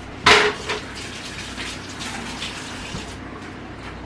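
A metal pan set down with a sharp clank that rings briefly, a lighter second knock just after, then low clattering and handling noise.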